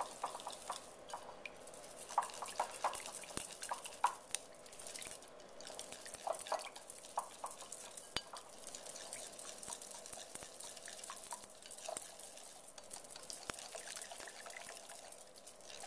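A wire whisk stirring thick sweetened condensed milk with lemon juice and zest in a mixing bowl: continuous wet swishing with small clicks and taps of the whisk against the bowl.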